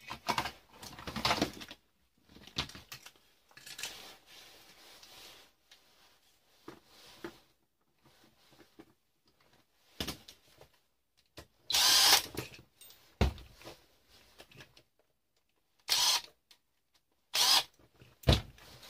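A power drill run in several short bursts, with a few sharp clacks of metal and plastic parts being handled on the bench.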